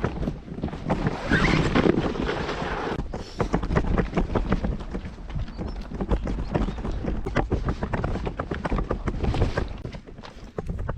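Wind buffeting the microphone, with a dense, irregular run of clicks and crunches throughout.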